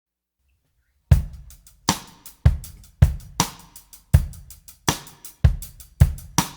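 Background music: a drum kit playing a steady beat, kick and snare with hi-hat, starting about a second in.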